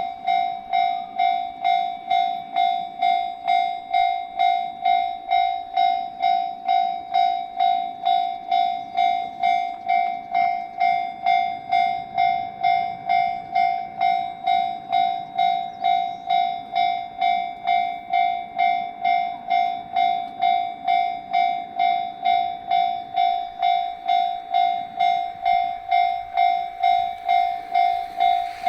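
Electronic railway level-crossing warning bell ringing in a steady, regular ding-ding, signalling that a train is approaching.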